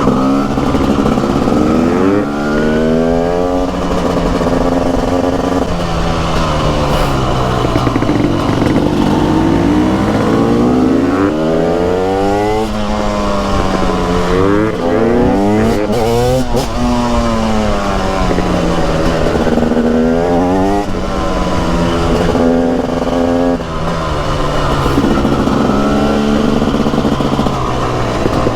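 Two-stroke engine of a TM SMR 300 supermoto under way. Its pitch rises and falls over and over as the bike accelerates and slows.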